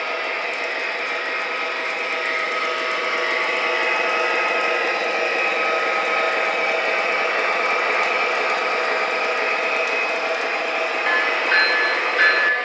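O-scale MTH Premier GE AC4400CW model diesel locomotive running with its Proto-Sound 3.0 engine sound, a string of freight cars rolling along three-rail track behind it, a little louder through the middle as the train passes. Near the end a short ringing tone starts repeating about every three-quarters of a second.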